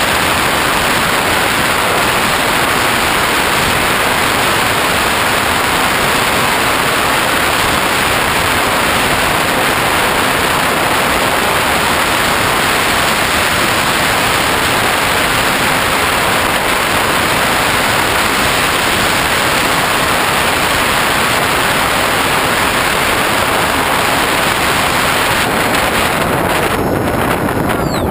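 Steady rush of airflow over the onboard GoPro's microphone on a Hobbyking Bixler RC model plane in flight: an even, loud hiss with no distinct motor tone.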